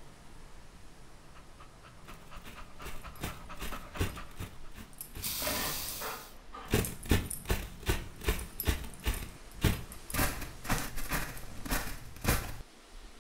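A dog panting in quick, short breaths as it runs through snow. The panting begins about two seconds in and grows louder as the dog comes closer.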